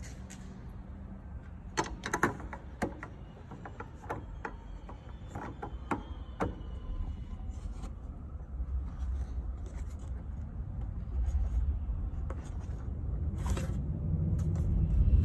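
Hands working at a car's headlight wiring connector and plastic trim: scattered sharp plastic clicks and scrapes. Under them runs a low rumble from the handheld phone being moved about, which grows louder near the end.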